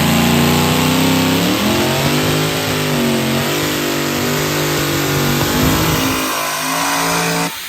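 A diesel pickup truck's engine under heavy throttle on a pulling track, with the pitch dipping and rising several times as it loads and revs. It cuts off abruptly near the end.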